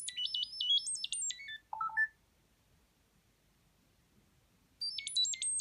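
Chirp data-over-sound codes played by a Spark Core through a small earbud: a rapid run of short pure electronic tones hopping up and down in pitch for about two seconds, ending on a few lower notes. A second code starts near the end. Each run encodes a short message or link for a listening device to decode.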